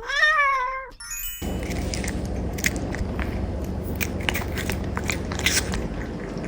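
A cat meows once, a call about a second long that rises and then falls, followed by a brief steady tone. Then a cat crunches and chews freeze-dried cube treats, with irregular crackling bites over a steady low hum.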